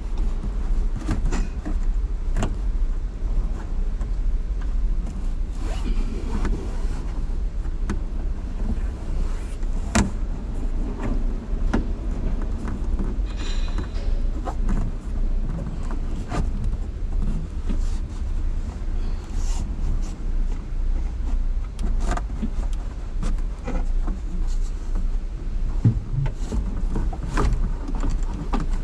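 Scattered clicks, knocks and rustling as a car's headliner panel and its plastic trim are handled and pushed back into place, over a steady low hum. The sharpest knock comes about ten seconds in.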